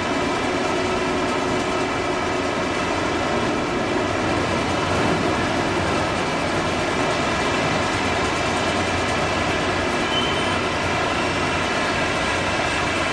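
Agave shredding and milling machinery running steadily with a constant mechanical drone as cooked agave is torn into fibre.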